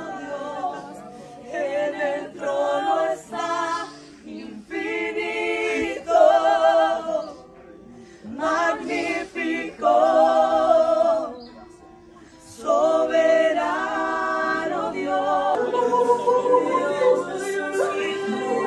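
Voices singing without instruments, a slow song sung in phrases with short pauses between them.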